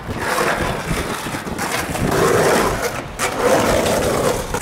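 Skateboard wheels rolling over rough street pavement: a steady gritty rumble, with a short break about three seconds in.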